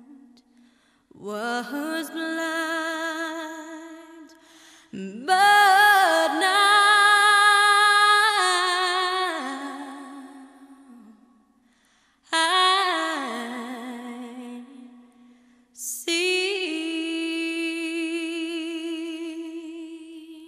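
A solo voice singing a slow, wordless melody in four long phrases of held notes with vibrato, the second phrase the loudest.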